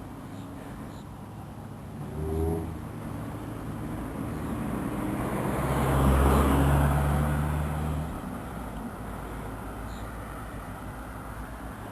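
A motor vehicle passing on the road: its tyre and engine noise swells to a peak about six seconds in and dies away by about eight seconds. Under it runs a steady low hum, with a shorter swell about two and a half seconds in.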